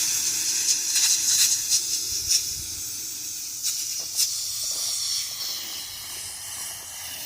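Compressed-air sandblaster hissing as it blasts a tractor wheel center, with short louder spurts in the first few seconds.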